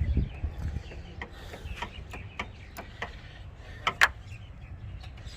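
Sharp plastic clicks and knocks as a car's front grille is worked loose from its push clips by hand. A muffled thump at the start, then scattered ticks, with the loudest double click about four seconds in.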